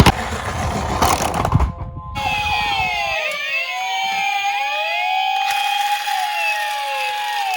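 Siren sound effects from several toy police car and ambulance minicars playing at once, their electronic tones sliding up and down and overlapping. A rumbling clatter fills the first second and a half, then stops with a brief gap before the sirens come in clearly.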